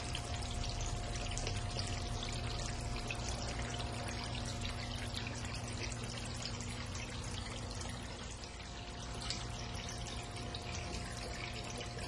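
Water running down the stone face of an indoor water wall fountain and splashing into its trough, a steady trickling splash. A faint constant hum runs underneath.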